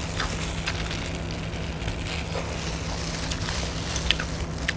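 Eating sounds: scattered small crunches and chewing as two people bite into crispy fried chicken. A steady low hum runs underneath.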